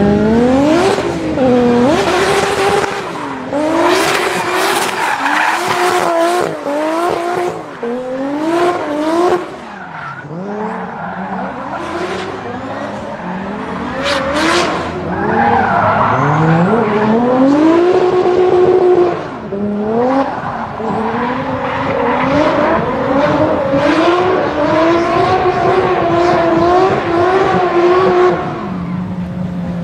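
Toyota Supra drift car's engine revving hard in repeated quick surges, the revs climbing and dropping again and again as it drifts, with tyres squealing under a haze of noise.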